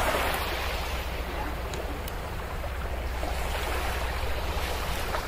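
Steady wind and water noise: a rush of wind buffeting the microphone with a low rumble, over the sound of the water.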